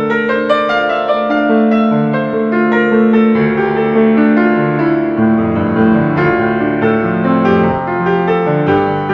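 Background music played on piano, with held, overlapping notes.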